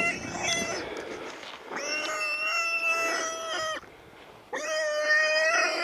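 Feral hog squealing: a few short squeals, then two long, drawn-out squeals of steady pitch, the first about two seconds, the second about a second and a half.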